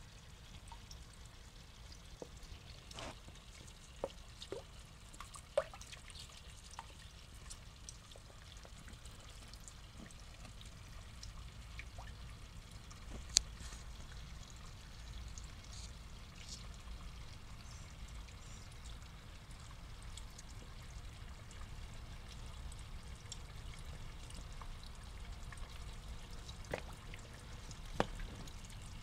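A steady faint trickle of pond water with scattered small splashes and sharp clicks as Japanese pond turtles snap up floating food at the surface; the sharpest click comes about halfway through.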